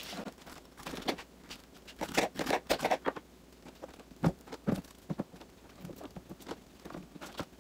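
Pineapple chunks being cut and dropped by hand into a blender jar: an irregular run of short taps, clunks and knocks, with a few heavier thuds about four to five seconds in.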